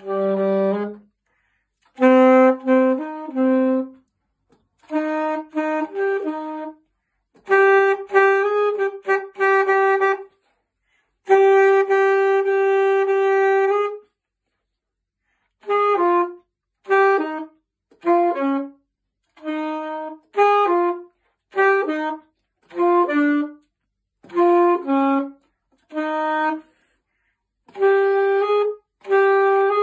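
Solo alto saxophone playing short phrases of notes separated by brief pauses. A long held note comes about eleven seconds in, followed by a string of short, separate notes, mostly in falling pairs.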